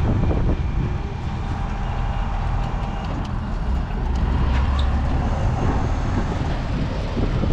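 Engine running with a steady low hum, under wind rumbling on the microphone, with a few small clicks.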